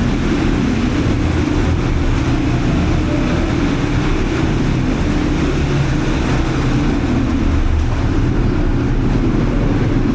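All-terrain vehicle (quad bike) engine running steadily under way, a continuous low rumble.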